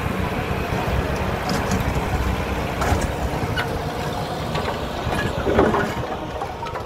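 Dongyang (TYM) TX76 tractor running at about 2,000 rpm and driving a rear-mounted RT210 rotary tiller through the PTO as it churns the soil. A steady engine rumble with irregular clanks and rattles from the tiller, the loudest a little before the end.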